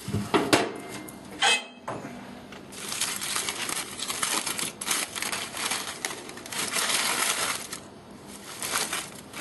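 Heavy aluminium foil crinkling and crackling as it is pulled open by gloved hands, most of it in one long stretch from about three seconds in, with a couple of sharp clicks in the first two seconds.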